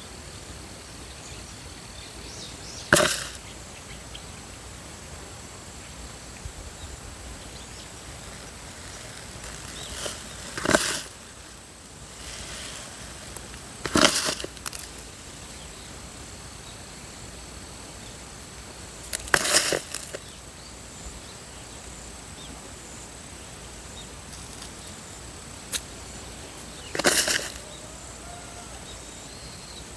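Five brief swishing scrapes a few seconds apart, over a faint, steady, high thin tone.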